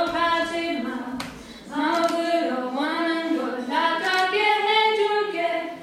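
Female voices singing a melody unaccompanied, with long held notes and short breaks between phrases, sung into a microphone.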